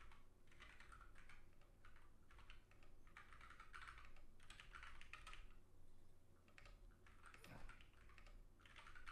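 Faint keystrokes on a ZSA Moonlander split mechanical keyboard, typed in short irregular runs with brief pauses between them.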